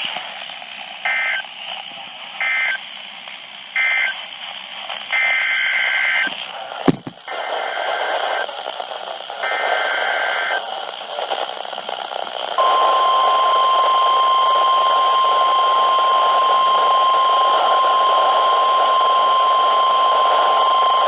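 NOAA Weather Radio Emergency Alert System tones over a hissing receiver. First come three short warbling SAME data bursts, the end-of-message code closing the previous warning. Then come three longer bursts, the digital header of a new severe thunderstorm warning, followed about halfway through by the steady 1050 Hz weather radio warning alarm tone, held for about nine seconds.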